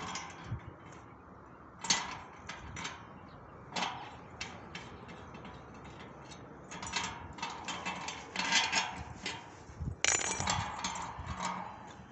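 Metal satellite dish and its LNB arm being handled: scattered sharp clinks and knocks, coming thicker in clusters in the second half.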